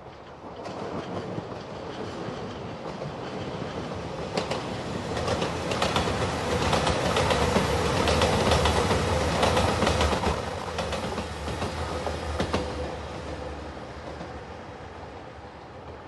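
A JR Shikoku diesel limited express train passing by. Its running noise builds to a peak around the middle, with a rapid series of clacks from the wheels crossing rail joints, then fades steadily as it moves away.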